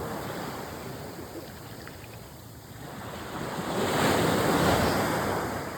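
Ocean surf: waves breaking and washing in, swelling to its loudest a little past halfway through.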